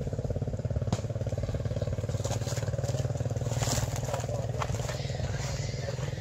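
An engine idling steadily with an even, rapid pulse, with a few short clicks or rustles over it.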